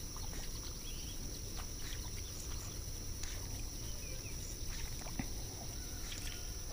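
Insects droning steadily in one high-pitched note over a low outdoor background, with a few faint ticks.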